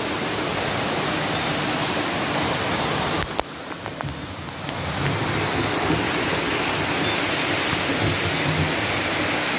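Heavy tropical downpour: a loud, steady, dense hiss of pouring rain, which turns quieter and muffled for about a second and a half around three seconds in.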